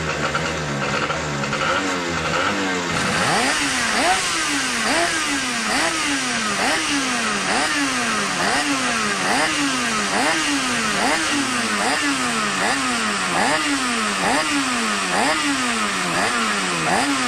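Racing outboard engine running, fairly steady at first. From about three seconds in, its revs rise and fall over and over, roughly once every three-quarters of a second.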